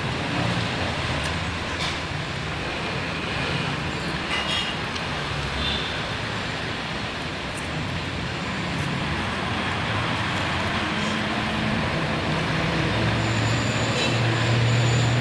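Steady road-traffic noise with the low hum of vehicle engines; one engine grows louder near the end, as if passing close. A few faint clicks sound over it.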